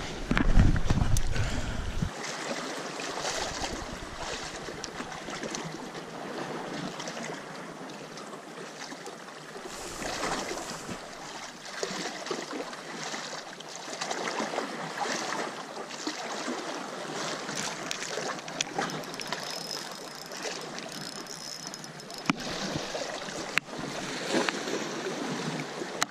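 Small sea waves washing and splashing against shore rocks, a steady noise throughout. A loud low rumble on the microphone in the first two seconds, with a few sharp clicks scattered later.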